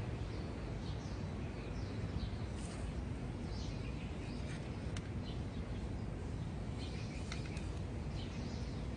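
Birds chirping with many short, falling calls, over a steady low rumble. A couple of light clicks come about five and seven seconds in.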